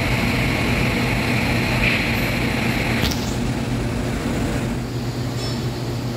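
TIG welding on stainless steel pipe: a steady hiss that stops with a click about three seconds in, over a steady low hum.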